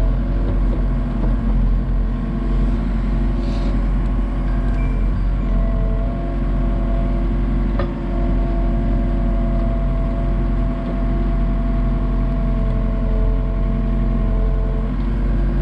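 Komatsu excavator's diesel engine running steadily, with a steady higher whine joining about six seconds in and fading near the end.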